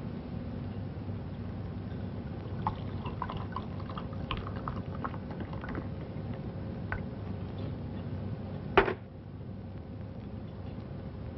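Wine poured from a bottle into a wine glass, with light clinks of glass on glass. One sharp knock comes near the end.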